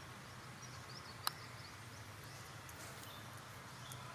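Faint outdoor background noise with a steady low hum, broken by one sharp click just over a second in.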